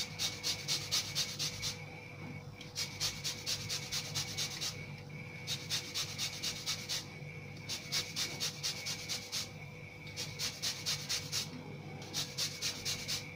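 Lemon being zested on a handheld metal rasp grater: quick scratchy strokes, about five a second, in short runs of one to two seconds broken by brief pauses.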